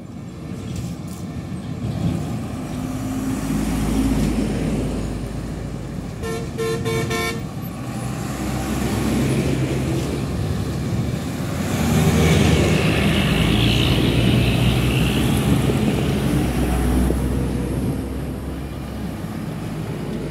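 Heavy diesel trucks driving past with a deep engine rumble that swells twice as they go by, the second pass the loudest. About six seconds in, a horn sounds in a quick run of short blasts, and a high whine rides over the engines as the trucks pass.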